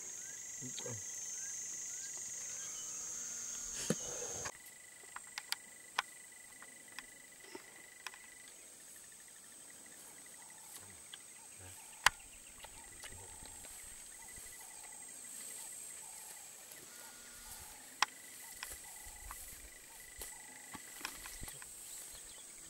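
Steady high insect chirring, crickets or cicadas, with a thin steady whine that comes and goes. The sound drops in level about four seconds in. A few sharp clicks stand out, the loudest about halfway through and again near the end, over faint voices.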